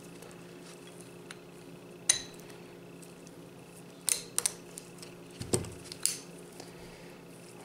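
A few sharp metallic clicks and clinks from steel pliers and the parts of a Craftsman round head fine tooth ratchet head, as the retention ring is squeezed into the head. The clicks come singly, about two seconds in, a quick cluster around four seconds and two more after five seconds, over a faint steady hum.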